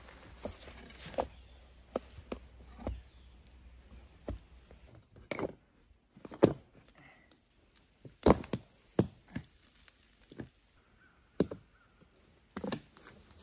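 Irregular sharp cracks and knocks of poplar bark being prised loose from a freshly felled log with a steel bar, the loudest about six and a half and eight seconds in.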